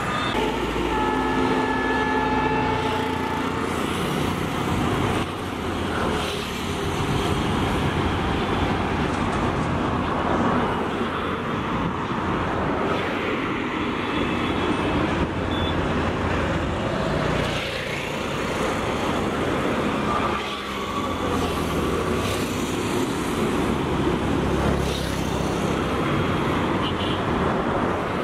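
Busy road traffic: a steady din of cars, buses and other motor vehicles, with a horn blaring for a couple of seconds near the start and another short horn a little past two-thirds of the way through.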